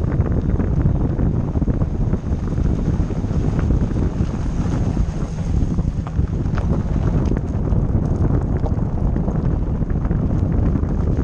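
Wind buffeting the microphone of a camera mounted on the outside of a car driving on a gravel track, with a steady rumble of tyres on gravel and scattered small ticks of stones.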